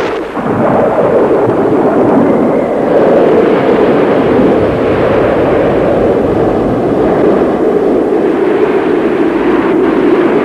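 Storm sound effect: a loud, steady rush of wind and heaving sea.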